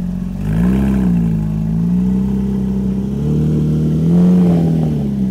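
2016 Porsche 911 GT3's flat-six engine idling with its side mufflers and centre muffler deleted, blipped lightly twice, about a second in and again about four seconds in.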